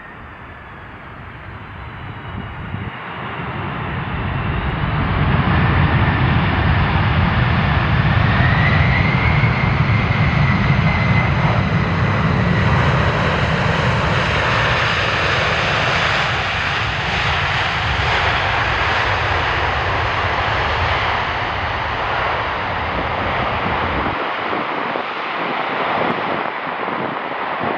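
Jet airliner's engines passing on landing approach: the noise swells over the first few seconds to a loud, steady rush with a high engine whine over a deep rumble, and the rumble drops away near the end.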